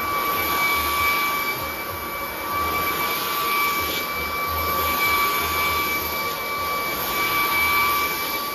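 Hart 20V brushless cordless stick vacuum running steadily with a high motor whine, its head pushed back and forth over a shag rug with low rumbling surges. The motor is sucking but the brush roll is not spinning.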